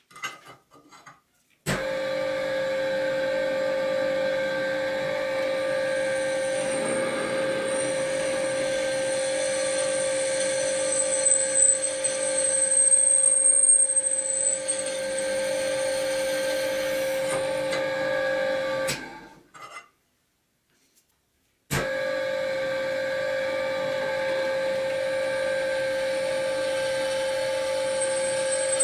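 Benchtop drill press running with a steady motor hum while its twist bit drills into a metal flat bar. The cutting grows louder, with a high squeal, midway through. The sound cuts out for about two seconds, then the drill press runs steadily again.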